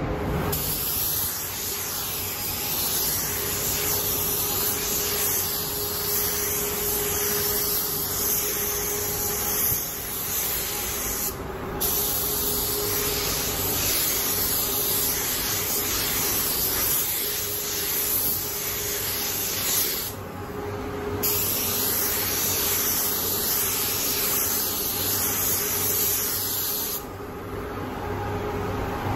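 Paint spray gun hissing steadily as clear coat is sprayed onto a motorcycle fuel tank. The spray stops briefly twice, about a third and two thirds of the way through, and cuts off shortly before the end. A faint steady hum runs underneath.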